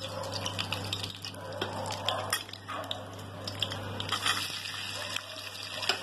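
Sliced onions sizzling in hot oil with whole spices in a pressure-cooker pan; the sizzle gets louder as they go in at the start. A steel ladle stirring them clicks and scrapes against the pan.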